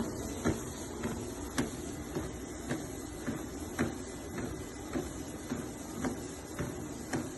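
Walking pad under-desk treadmill running with someone walking on it: a steady motor and belt noise with footfalls landing evenly, a little under two a second.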